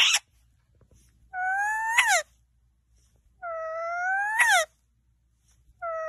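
Indian ringneck parakeet calling: a short sharp squawk at the very start, then three long drawn-out whining calls about two seconds apart. Each rises slowly in pitch and ends in a quick up-and-down flick.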